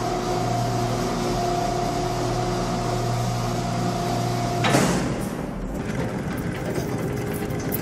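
Machinery running with a steady hum and a held tone. A little past halfway a sudden loud burst of noise cuts in, followed by a lighter mechanical rattle.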